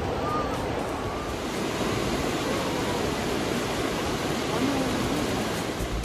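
Steady rush of water from the Tomara waterfall, an even unbroken noise with no rhythm or change in level.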